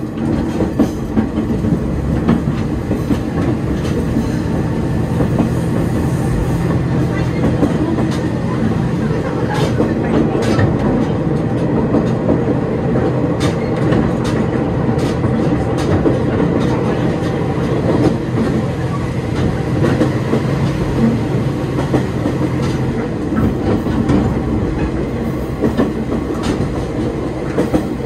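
Diesel railcar running along the line: a steady engine drone under the rush of the moving train, with clicks from the wheels crossing rail joints.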